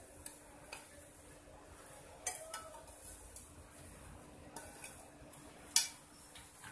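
A plate and spoon clinking and knocking against the rim of a pressure cooker as grated pumpkin is tipped and scraped in: a handful of light, separate knocks, the loudest near the end.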